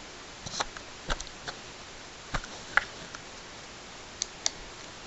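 Sharp plastic clicks and taps from handling an Olympus Stylus VG-190 compact digital camera while its battery is refitted and it is switched on: about eight separate clicks at irregular intervals.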